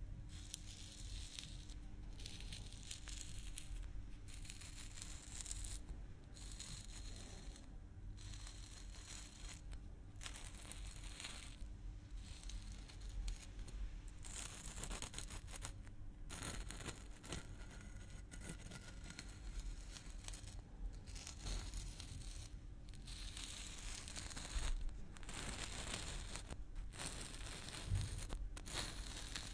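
Fingertips rubbing and scratching at the red plastic cap of a maple-syrup bottle held close to a microphone: a scratchy rasping in stretches of a second or two with short breaks, and a few sharper knocks near the end.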